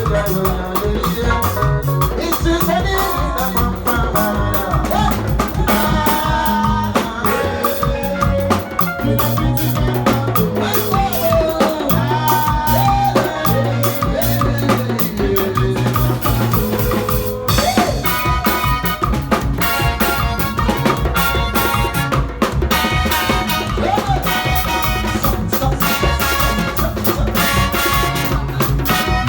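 Loud dance music with a drum kit keeping a steady beat and a melody winding over it.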